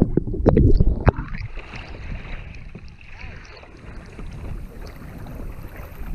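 Water splashing and sloshing around a kayak, with a few sharp knocks in the first second or so, then a steady watery hiss.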